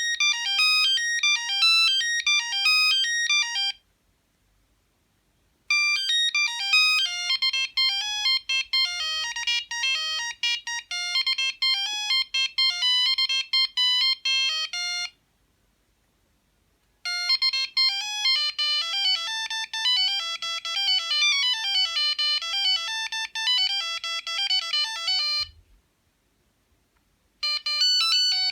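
Sony CMD-CD5 mobile phone playing its built-in ringtones one after another: thin, high electronic melodies with no bass. One tune ends about four seconds in, two more play for about eight to nine seconds each, and a fourth starts near the end, with about two seconds of silence between tunes.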